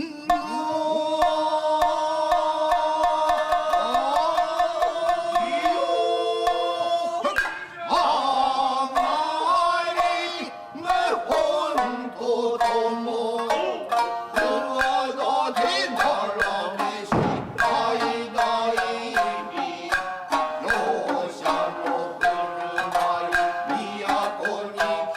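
Tokiwazu music: shamisen plucking a steady run of notes under long, drawn-out chanted vowels that bend in pitch. A single heavy thump comes about 17 seconds in.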